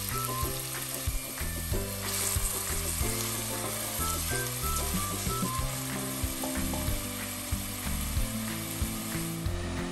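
Diced onion, carrot and celery sizzling in hot oil in a stainless steel pot as a soffritto, stirred with a wooden spoon. Light background music with short melody notes plays over it.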